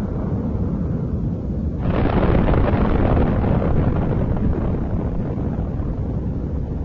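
Explosion: a deep rumble that swells into a louder blast about two seconds in, then a long, slowly fading rumble.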